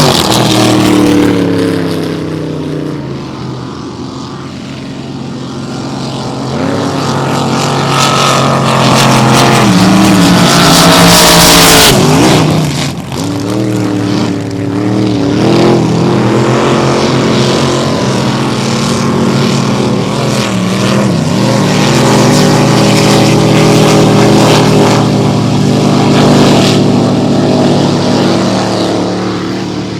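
Several race boat engines running hard at different pitches, rising and falling as the boats race. About eleven seconds in, one passes close with a loud rush and a quick swing in pitch.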